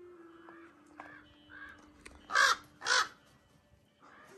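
Crows cawing: a few faint caws, then two loud caws about half a second apart, a little over two seconds in.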